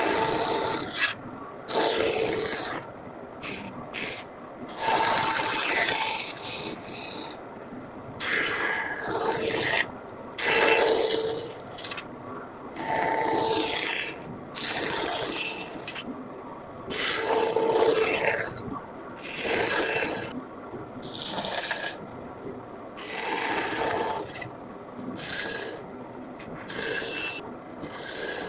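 Hand carving tool cutting into a woodblock, a scraping stroke every second or two as wood is cut away.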